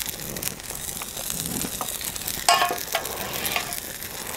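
Kassler pork chops sizzling in hot oil on a steel fire plate, a steady high hiss of frying. A brief louder noise comes about halfway through.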